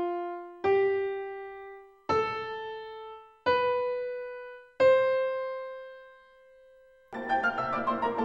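Single piano notes struck one at a time, each higher than the last and left to ring and fade away, four of them about 1.4 seconds apart. Near the end a fast, full piano passage begins.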